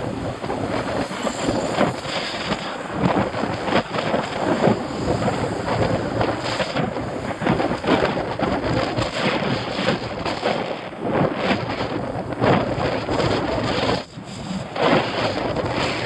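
Wind buffeting the microphone while riding a bicycle: a continuous rushing noise with irregular gusty surges, easing briefly about fourteen seconds in.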